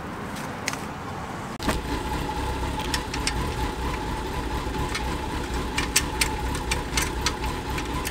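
A motor running steadily with a low rumble and a constant whine, starting about one and a half seconds in, over scattered sharp metallic clicks and clinks from hand tools working on a motorcycle's rear end.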